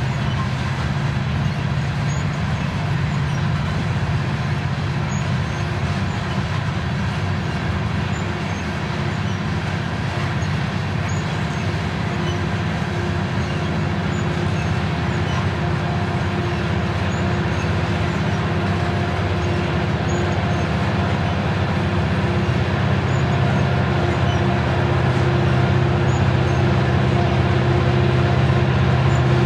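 Loaded coal hopper cars rolling slowly past on an upgrade: a steady rumble of steel wheels on rail, with a faint click about every three seconds. A low drone underneath grows louder toward the end.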